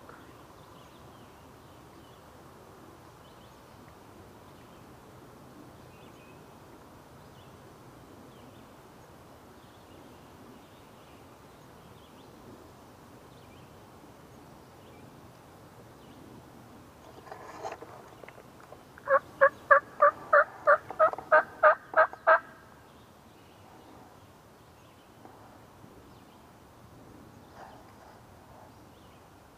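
Turkey calling: a run of about a dozen loud, evenly spaced yelps, about three a second, lasting some three seconds, after a softer call a moment before.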